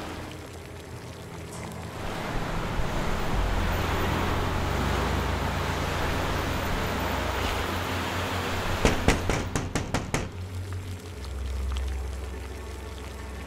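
Steady city-street traffic noise with a low hum. About nine seconds in comes a quick run of sharp clicks.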